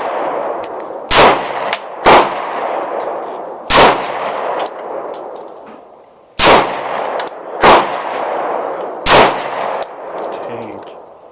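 Glock 19 9 mm pistol fired six times at an uneven pace, each shot followed by a long echo.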